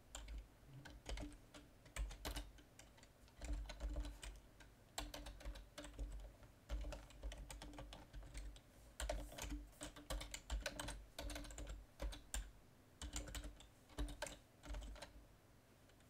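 Typing on a computer keyboard: irregular runs of keystrokes with short pauses between.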